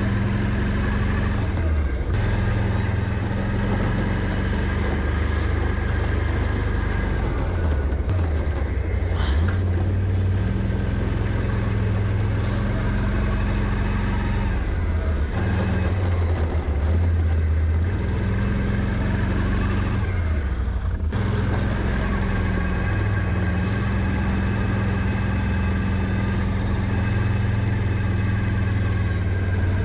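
Can-Am Outlander 650 ATV's V-twin engine running steadily, with a few sudden breaks in the sound.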